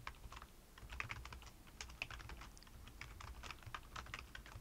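Faint computer keyboard typing: a quick, irregular run of keystroke clicks as a line of code is typed.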